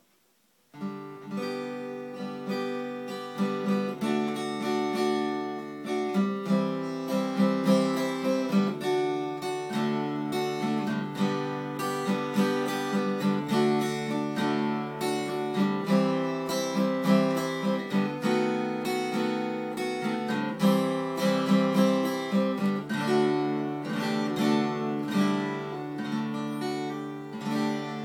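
A 1971 Yamaha FG-110 red-label acoustic guitar, strung with fairly new Martin 11-gauge strings, played continuously in a mix of picked notes and strummed chords, starting about a second in.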